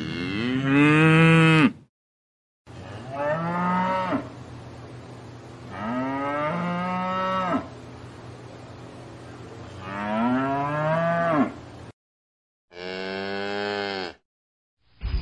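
Holstein Friesian cow mooing repeatedly: about five long calls, each rising and then falling in pitch. The sound cuts out completely for a moment twice.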